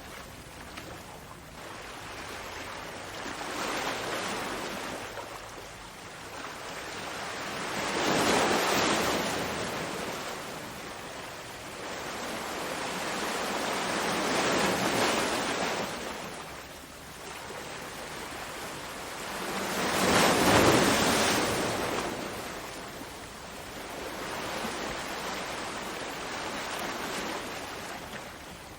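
Ocean waves breaking and washing in, five swells of surf each rising and fading about every five to six seconds. The biggest wave comes about two-thirds of the way through.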